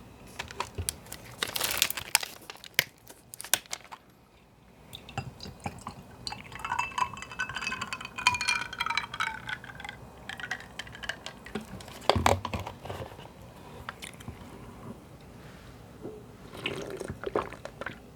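Del Monte mango juice being opened and poured into a glass: a series of sharp clicks and handling knocks, then a pitched, gurgling pour lasting several seconds, and a single knock about twelve seconds in.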